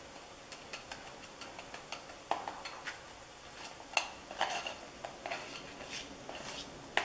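A screwdriver tip scraping and ticking against the broken, corroded lead plate pieces of a cut-open Optima AGM battery cell. A scatter of faint light scrapes and clicks, a little louder about two and a half and four seconds in.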